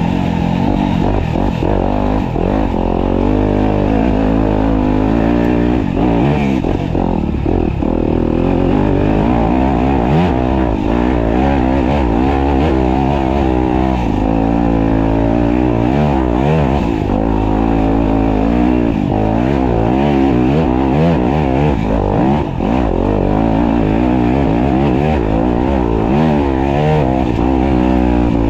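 Off-road dirt bike engine, ridden on a muddy course, revving up and down constantly as the throttle is worked.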